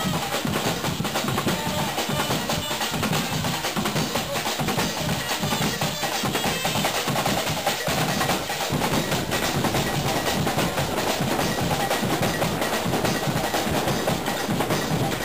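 Background music led by percussion, with a busy drum beat.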